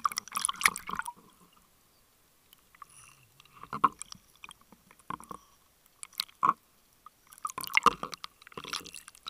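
Bubbles and water sloshing around an underwater camera held just below the surface. The gurgling comes in irregular bursts every second or two with quiet between, loudest at the start and again near the end.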